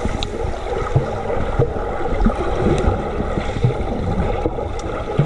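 Muffled churning and bubbling water from a swimmer's kicks and strokes, heard underwater, with irregular low thuds.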